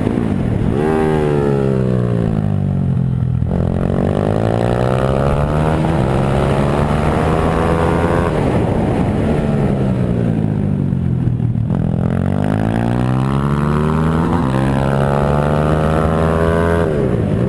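Pit bike engine revving up and down repeatedly as it is ridden. The pitch climbs, drops suddenly at gear changes, and falls away as it slows, in two similar cycles.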